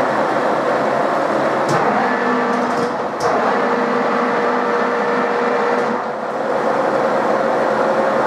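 Milling machine spindle running free at about 400 RPM before the cut, a steady mechanical whir with a constant tone. A couple of short clicks come about two and three seconds in.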